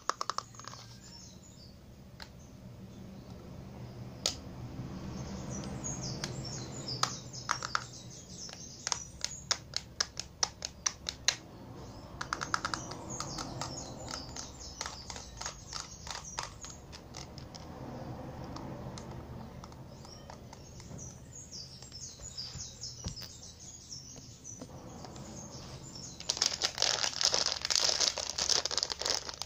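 Fingernails tapping on objects for ASMR: many quick sharp clicks, at times in fast runs, over a soft rustle. Near the end comes a dense stretch of high rustling or crinkling.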